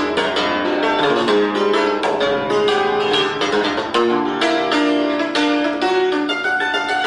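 Concert cimbalom played solo with two beaters: a quick, dense stream of struck notes that ring on and overlap.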